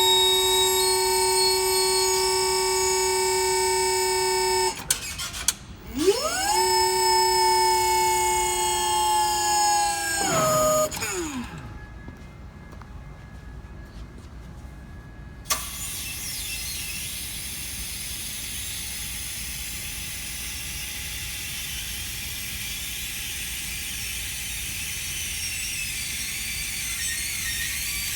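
Electric hydraulic pump motor of a Genie GS-1930 scissor lift whining steadily, cutting out about five seconds in, then spinning up again with a rising pitch, holding, and winding down with a falling pitch around ten seconds in. A sharp click near sixteen seconds is followed by a steady high hiss. The owner records this as an abnormal noise.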